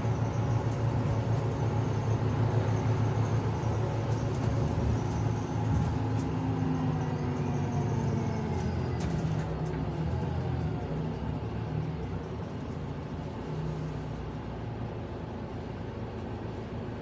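A bus engine running, its pitch shifting partway through and the sound slowly getting quieter.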